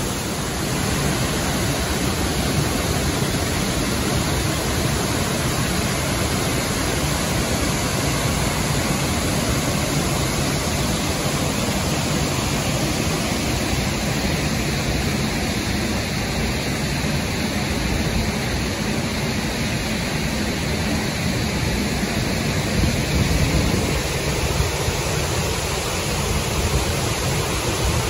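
Steady rushing of water from Burney Falls pouring into its pool, and from the rapids of the creek below the falls. The deep part of the rush shifts a little near the end.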